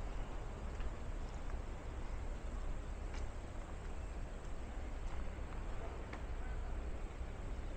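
Steady high-pitched insect chorus, one even unbroken hum, over a low rumble.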